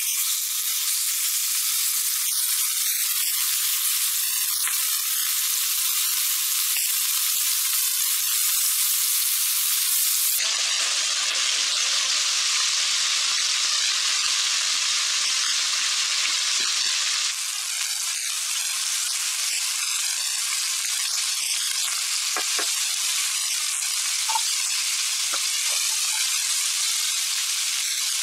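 Boneless chicken thigh pieces sizzling as they fry in oil in a nonstick pan: a steady hiss whose tone shifts abruptly twice, with a few light clicks of a utensil against the pan.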